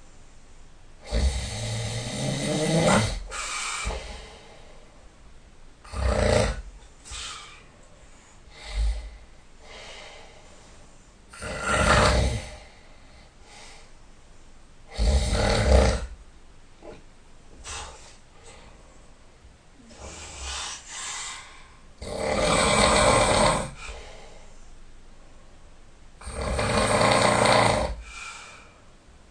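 A person snoring loudly in sleep: separate snores every few seconds, some lasting about two seconds, with fainter breaths in between.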